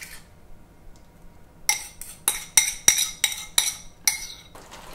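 A spoon scraping and knocking against a ceramic bowl as batter is scraped out. About a second and a half in come about eight sharp clinks, roughly three a second.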